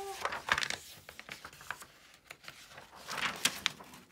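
Large paper poster being unrolled and handled: the stiff paper rustles and crackles, once about half a second in and again more densely around three seconds in.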